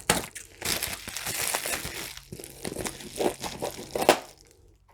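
Plant shipping packaging crinkling and rustling as it is handled and pulled apart, in irregular bursts that die away near the end.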